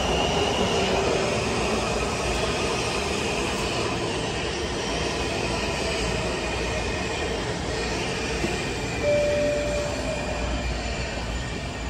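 Metro train running in the station, a steady echoing rumble with faint high wheel squeal. A short beep sounds about nine seconds in.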